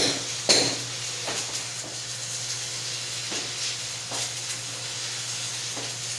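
Electric arc welding: the arc crackles and hisses steadily over a constant low hum, after a couple of sharp metal clinks at the start.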